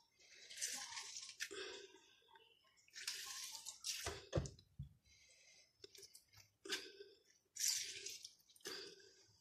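Lemon halves being squeezed by hand over a plastic bowl: faint, wet squeezing sounds in five or six short bursts, with one sharp click about four seconds in.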